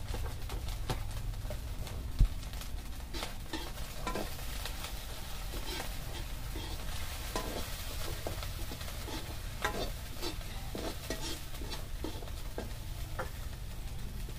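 Food frying in oil in a kadai (wok) over a wood fire: a steady sizzle with a utensil stirring and scraping the pan in many short clicks. A single low thump about two seconds in is the loudest moment.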